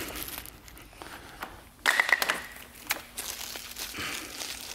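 Rustling and light clicks from a pressure washer's power cord being handled, with a louder burst of rustling about two seconds in.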